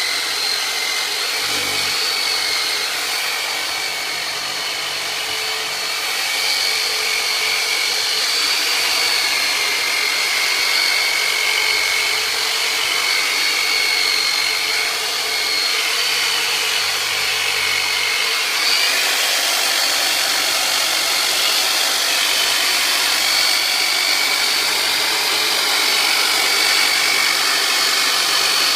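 Turbonator myofascial release instrument running steadily as it is worked over the muscles: a motor whine over a hiss, its pitch wavering slightly.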